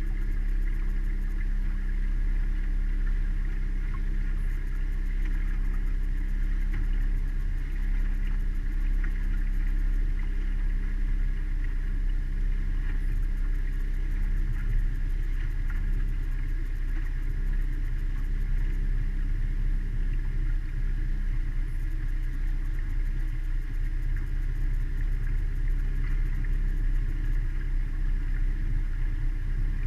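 Mariner outboard motor running steadily at an even cruising speed, a constant low drone that neither rises nor falls.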